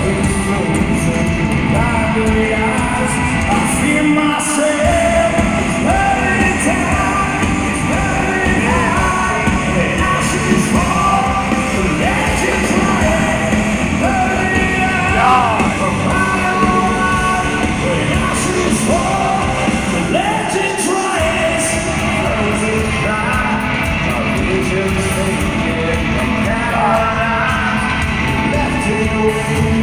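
Hard rock band playing live in an arena, recorded from the audience: guitars and drums with sung and yelled lead vocals, all carrying the hall's echo.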